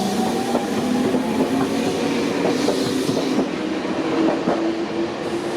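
Electric train running, heard from inside the carriage: a steady whine with wheels clicking over the rail joints.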